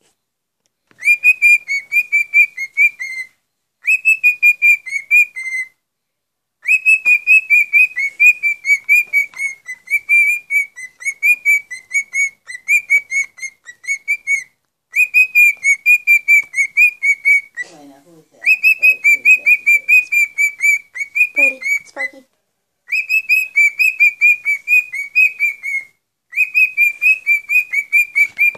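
Male grey cockatiel singing: quick runs of repeated whistled chirps, several notes a second, in phrases of a few seconds each broken by short pauses.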